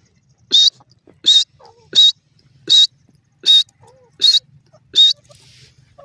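Grey francolin calling: seven loud, short, high-pitched calls, evenly spaced about three-quarters of a second apart.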